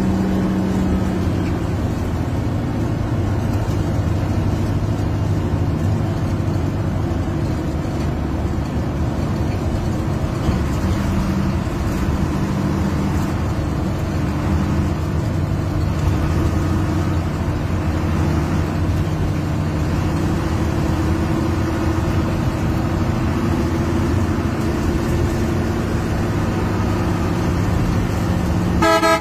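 Hino 1J bus's diesel engine running hard at highway speed, heard from inside the cab, its pitch rising and falling. A vehicle horn sounds briefly near the end.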